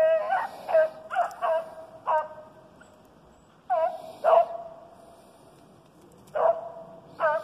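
A pack of rabbit-hunting dogs barking and baying in irregular bursts: a quick run of about five high, ringing calls in the first two seconds, two more near the middle and two near the end. This is typical of hounds giving tongue while they run a rabbit's trail.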